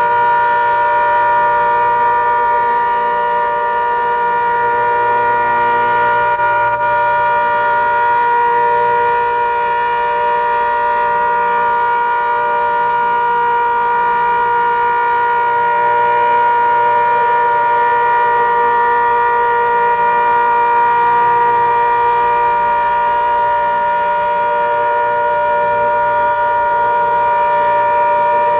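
ACA Hurricane outdoor warning siren sounding a steady alert, holding one pitch with several tones together, its loudness swelling and fading slightly.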